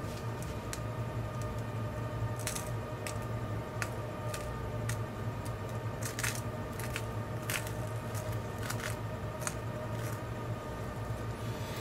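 Iron filings being shaken out onto a sheet of paper in short irregular bursts, a dry rattle and patter of small grains, over a steady low hum.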